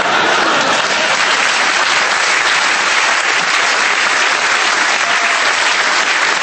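Large audience applauding steadily, a dense patter of many hands clapping.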